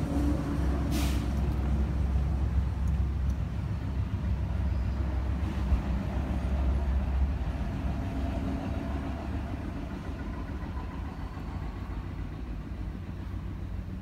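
Low engine rumble of a motor vehicle, heavy at first and fading away after about seven seconds, with a short hiss about a second in.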